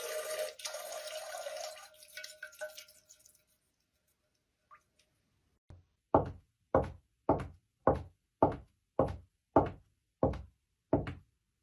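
A studio foley effect: a steady run of dull knocks, evenly spaced at about three every two seconds, starting about halfway through after the fading tail of a hissy sound.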